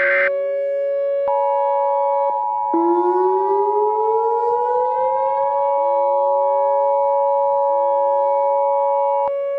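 EAS two-tone attention signal: the harsh paired-tone alarm starts about a second in and cuts off near the end. Under it, civil defense sirens hold a steady wail while others wind up in pitch again and again. A short screeching data-header burst ends just at the start.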